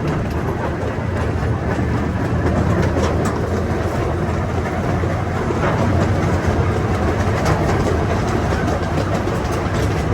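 Zoo train running along its track, with a steady rumble and wheels clicking over the rail joints, heard from aboard a car.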